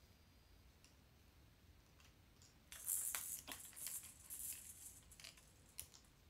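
Plastic rattle toys hanging from a baby bouncer's toy arch, rattling and clicking for about three seconds as the baby grabs and shakes them, starting a little under three seconds in.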